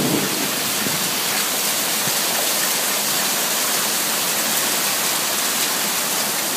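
Heavy rain pouring down in a thunderstorm: a steady, dense hiss of rain falling on the street and surfaces around.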